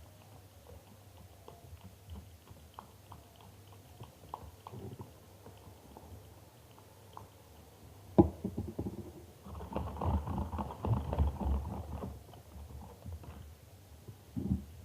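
Homemade glue slime being worked by hand: faint sticky clicks, a sharp click about eight seconds in, then a louder run of wet, squelching clicks for a couple of seconds as the slime is kneaded and stretched, with a thump near the end.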